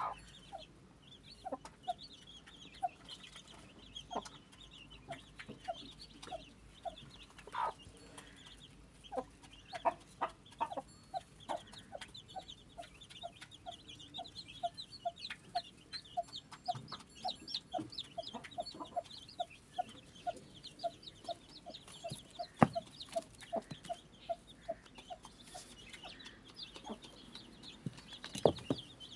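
A mother hen clucking softly and steadily to her newly hatched chicks, about three clucks a second, over the thin high peeping of the day-old chicks. Two sharp knocks come in the last third.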